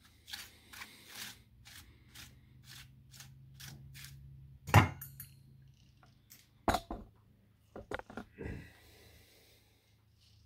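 Fingers crumbling and stirring burnt paper ash in a metal bowl: a run of small crackles and scrapes, then a few sharp knocks, the loudest about five seconds in.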